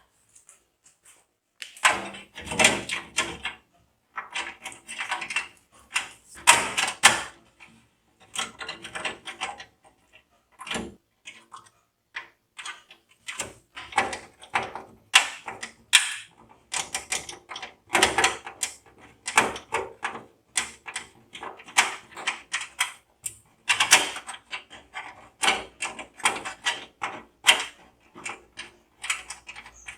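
Irregular clicking and clattering of computer parts being handled and fitted by hand, starting about two seconds in and going on in bursts.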